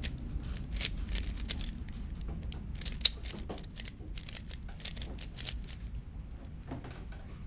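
3x3 speedcube being turned by hand: a rapid, irregular clatter of plastic clicks, with one sharp louder click about three seconds in, thinning out in the last couple of seconds.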